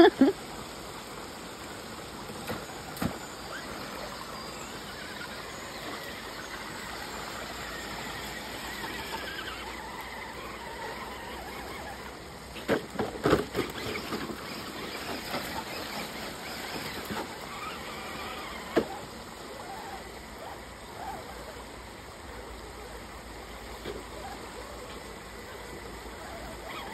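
Small electric RC crawler truck driving out of a shallow creek and climbing a dirt bank, its motor whining faintly over a steady trickle of water. A short run of knocks and clatters comes about halfway through.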